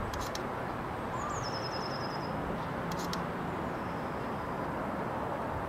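A small songbird sings a short, high, rapid trill that drops at the start and then runs on one pitch. It sings about a second in and again faintly near the end, over a steady outdoor rumble, with two brief high ticks.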